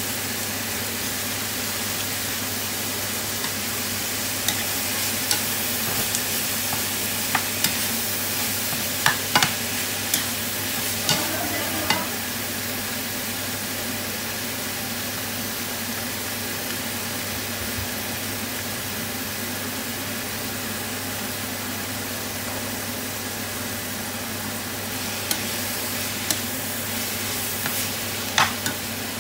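Pork mince with onion and garlic frying in a nonstick pan, a steady sizzle throughout. A spatula clicks and scrapes against the pan in a cluster over the first half, and again near the end.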